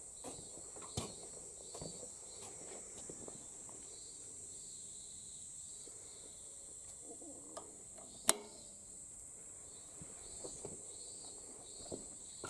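Faint, steady high-pitched insect chorus, crickets chirring, with scattered light clicks and knocks and one sharp loud click about eight seconds in.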